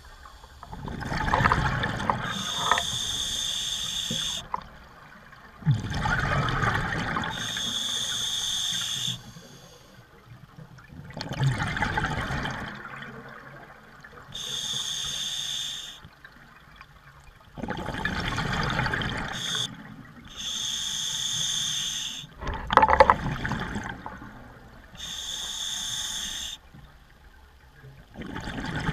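Scuba diver breathing through a regulator. A hissing inhale through the second stage alternates with a gush of exhaled bubbles, about every five to six seconds, six exhales in all.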